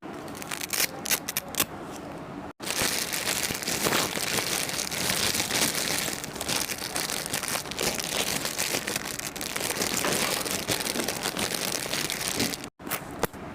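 Plastic packaging crinkling and rustling as it is handled and opened: a few separate crackles first, then a long stretch of dense, continuous crinkling.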